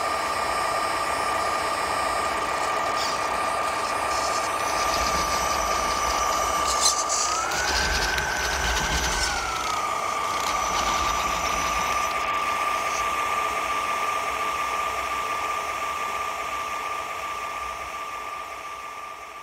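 RC truck sound module playing a simulated diesel truck engine idling through its small speaker, over a steady high whine. The pitch rises for about two seconds near the middle as the engine sound revs, then settles back, and the sound fades out near the end.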